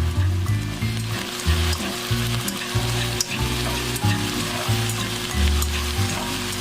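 Vegetables and king oyster mushrooms sizzling in an oiled frying pan while being stirred, with scattered clicks from the utensil against the pan. Background music plays underneath.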